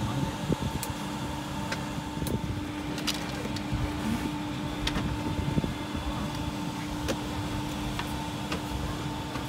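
Steady mechanical hum with a few held tones inside a parked small aircraft's cabin, with scattered light clicks and knocks.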